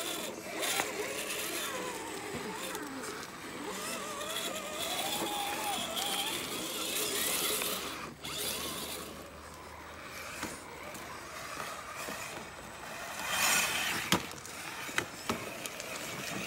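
Electric motors and geartrains of RC rock crawlers whining, pitch rising and falling with the throttle, with a few sharp knocks near the end.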